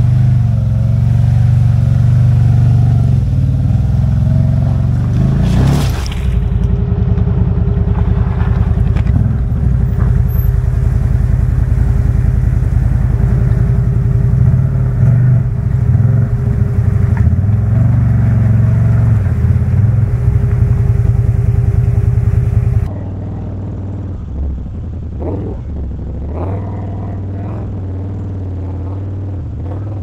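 CFMOTO ZFORCE 950 side-by-side's V-twin engine running under load, its note rising and falling with the throttle, with one sharp knock about six seconds in. About 23 seconds in the sound drops suddenly to a quieter, steadier run.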